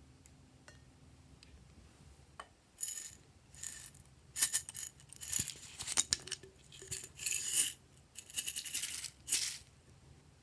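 Small hard pieces rattling and clattering against a container in a run of short bursts, starting about three seconds in.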